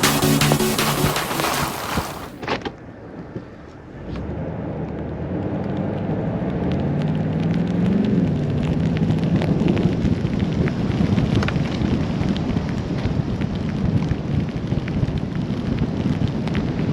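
Electronic music ends about two seconds in. Then the 2021 Toyota Tundra TRD Pro's 5.7-litre V8 runs under load through the snow, its pitch rising to a rev about eight seconds in and then settling, over a steady low rumble.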